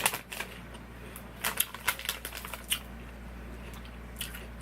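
Potato chips crunching while being chewed: a run of irregular sharp crackles in a few clusters.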